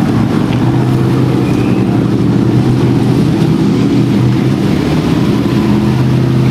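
Boat engine running steadily at low speed, a constant low hum with no change in pitch.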